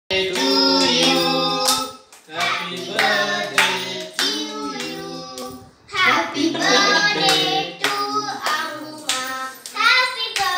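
Several voices, a child's among them, singing a birthday song together while clapping along in time.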